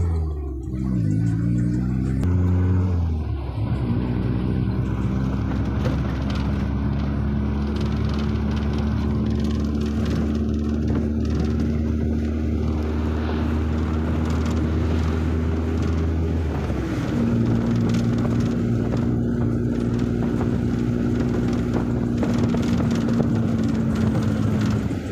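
Car engine and road noise heard from inside the moving vehicle. The engine's pitch rises and falls over the first few seconds, then holds steady, and changes again about two-thirds of the way through.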